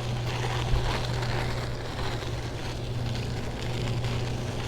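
Steady rumble and hiss of riding a bicycle: wind on the microphone and tyres rolling, with a light knock a little under a second in.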